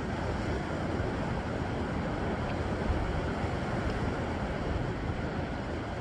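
Steady wash of sea surf breaking on shoreline rocks, with a low, uneven rumble of wind on the microphone.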